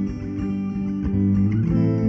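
Instrumental background music led by plucked guitar, with a chord change near the end.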